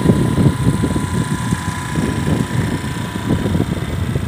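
Wind buffeting the microphone of a moving vehicle, a loud, rough, gusty rumble over the road and engine noise, with a faint steady high whine.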